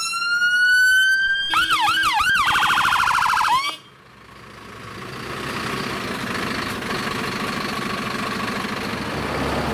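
Fire appliance siren on a Mercedes Unimog: a wail rising in pitch, switching about a second and a half in to a quick up-and-down yelp and then a faster warble, and cutting off suddenly about four seconds in. The truck's diesel engine then rumbles steadily as it pulls slowly past.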